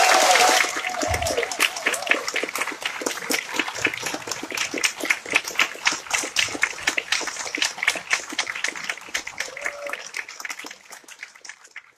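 Audience applauding, with cheering at the very start; the clapping thins out and fades away near the end.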